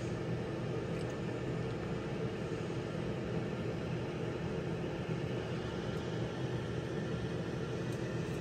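PowerXL air fryer running on Air Fry at 400°F while preheating, its fan giving a steady hum with a rush of air.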